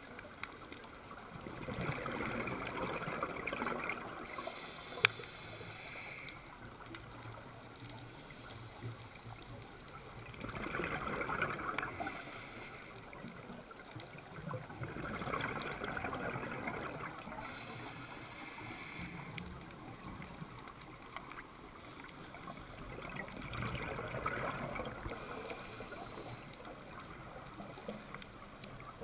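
Scuba diver's exhaled bubbles rushing from the regulator in bursts every few seconds, heard underwater. A sharp click about five seconds in.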